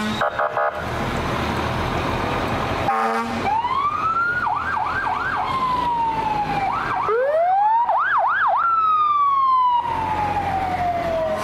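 Fire truck siren wailing up to a high pitch, swooping quickly up and down several times, then falling in a long slow wind-down near the end. Under it is the rumble of the slow-moving truck, with a brief horn note about three seconds in.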